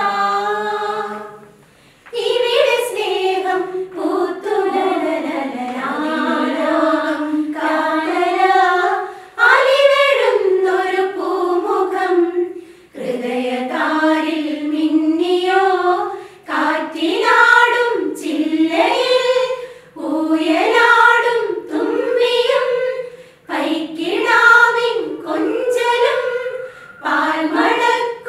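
Group of women singing a Christmas carol together, unaccompanied, in short sung phrases with brief breaks between lines.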